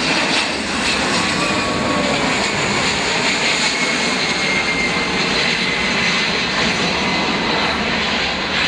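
Seaplane engine running loud and steady during a takeoff from water, with a faint, slowly falling whine above the noise.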